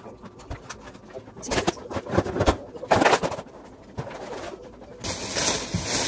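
Groceries being put away: scattered knocks and rustles, then a thin plastic produce bag crinkling steadily from about five seconds in.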